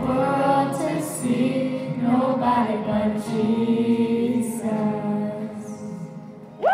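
Youth choir singing long held notes, dying away near the end; a loud rising-and-falling whoop breaks in at the very end.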